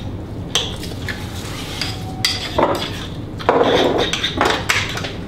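A metal utensil scraping and clinking against a small ceramic dish as an oily herb, garlic and caper paste is stirred, with irregular sharp clinks and a louder spell of scraping a little past halfway.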